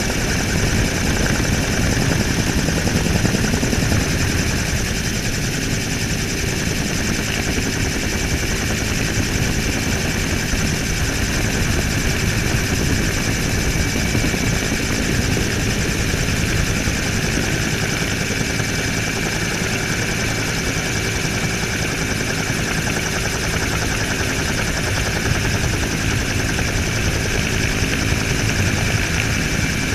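Helicopter in flight, heard from a camera mounted on its outside: a steady rapid rotor beat with a constant high turbine whine, under heavy wind-and-engine noise.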